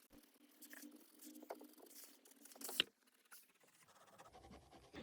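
Mechanical pencil lead scratching faintly on paper in short irregular strokes, with one sharper click a little past halfway.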